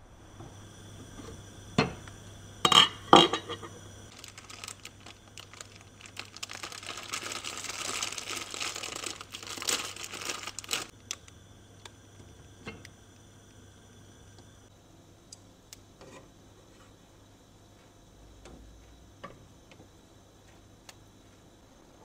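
Kitchen handling sounds while cooking instant noodles: a few sharp knocks and clicks of cookware early on, several seconds of rustling and crinkling, then a few quieter small knocks.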